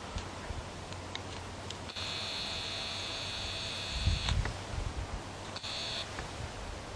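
Camcorder zoom motor whining: a steady high whine that switches on about two seconds in, runs for about two seconds, and comes back briefly near the end, heard over faint hiss. A low rumble of wind on the microphone rises around the middle.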